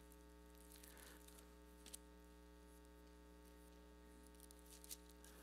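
Near silence with a steady electrical mains hum and a few faint ticks.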